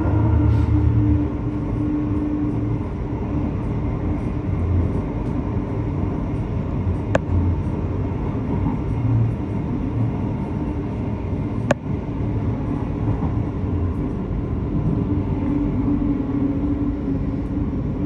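Train running with a steady rumble and a low hum. Two sharp clicks come about seven seconds and about twelve seconds in.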